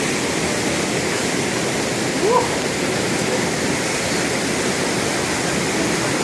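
Steady rush of running water, with a brief rising pitched call or voice about two seconds in.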